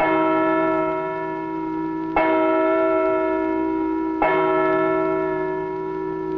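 A large church bell tolling: three strikes about two seconds apart, each left ringing and slowly fading.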